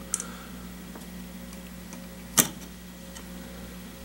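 Small clicks from handling a potentiometer and its wiring inside a metal power-feed control box: a faint click just after the start and a sharper click about two and a half seconds in, over a steady low hum.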